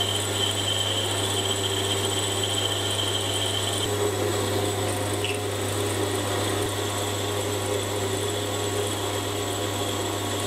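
Sieg C3 mini metal lathe running steadily while a carbide DCMT insert turns down a 12L14 steel shank, with a constant motor hum and the sound of the cut. A high tone in the cut drops out about four seconds in.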